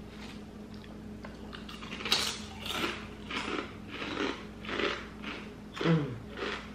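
Thick-cut crinkle kettle potato chips being chewed, a crunch about twice a second starting about two seconds in.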